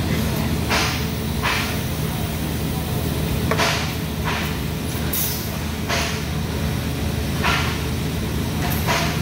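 TIG welding on 4-inch carbon steel pipe: a steady hum and hiss, with short louder hissing spurts at irregular intervals of roughly a second.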